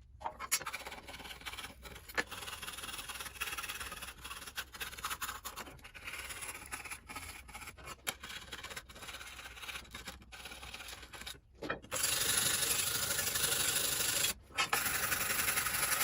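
Old gasket and sealant being scraped off the exhaust mating surfaces of a Viking 15 hp outboard, in irregular rasping strokes. About twelve seconds in it turns louder and steadier, with one brief break.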